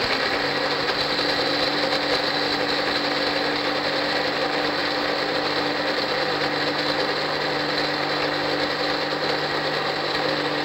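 Electric mixer grinder running steadily at full speed, its motor whining with a steady hum as it wet-grinds soaked chana dal, urad dal and sprouted pulses into batter.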